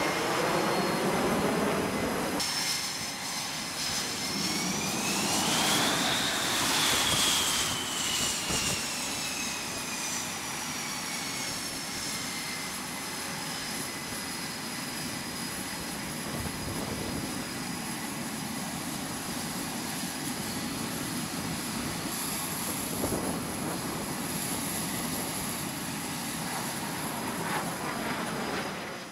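F/A-18 Super Hornet jet engines running on a carrier flight deck, a steady jet noise with a high turbine whine. A few seconds in the whine rises in pitch, then falls slowly over several seconds as the engine note settles.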